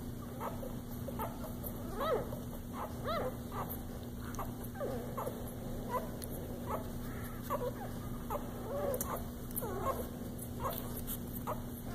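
Newborn puppies nursing, giving many short, high squeaks and whimpers scattered throughout, over a steady low hum.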